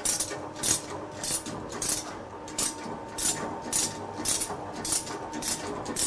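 Repeated light metallic clinks, about two a second, as an alloy wheel is clamped onto the chuck of a vertical CNC wheel repair lathe. Under them runs a faint steady hum.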